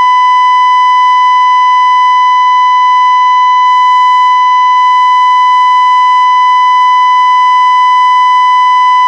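A continuous, loud electronic alarm tone held at one steady high pitch without a break, like a warning beep. Faint voices sit underneath it.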